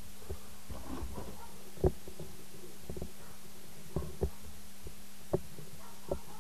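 Small brass drill-chuck parts being handled and fitted onto a small DC motor's shaft: a few sharp metal clicks and taps, the loudest about two seconds in, with some rustling of hands. A steady low hum runs underneath.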